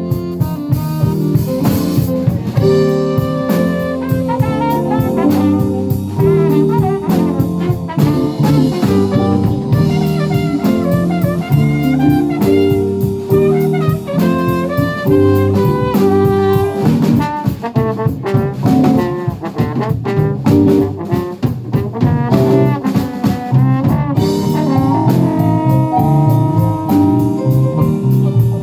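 Live band playing a jazz-style tune, with horns and a drum kit.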